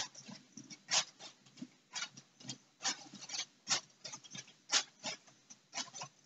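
Irregular crinkling and rustling of crinkly orange wrapping as cats paw at it and push their heads into it: short crackles in quick clusters with brief pauses.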